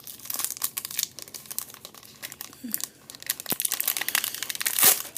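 Plastic wrapper crinkling and tearing as a pack of yo-yo trading cards is opened by hand: a quick run of crackles, with a louder snap near the end.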